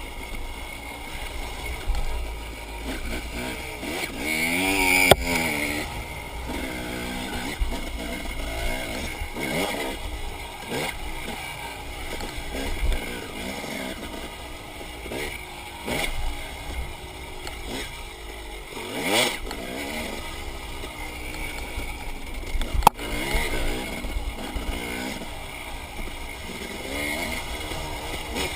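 Enduro dirt bike engine revving up and down repeatedly as the bike rides a trail, with a couple of sharp knocks.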